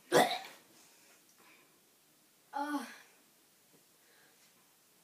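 A boy with a mouthful of dry cocoa powder gives one sharp, breathy cough, then a short vocal sound with falling pitch about two and a half seconds in.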